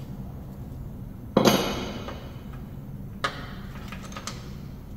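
A loud metal clank with a short ringing tail about one and a half seconds in, then a lighter metal click and a few faint taps: steel mower-deck parts and hand tools knocked against the stamped steel deck as a pulley is taken off.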